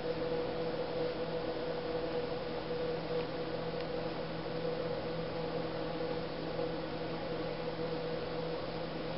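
Steady hiss with a low, even hum underneath; no distinct sound stands out.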